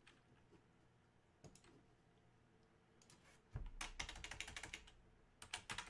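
Typing on a computer keyboard: a quick run of key taps about three and a half seconds in and another near the end, after a mostly quiet start with a single tap.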